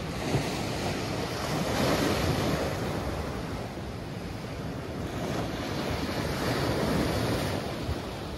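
Sea waves breaking and washing over a rocky, pebbly shore, swelling and easing as each wave comes in, with wind on the microphone.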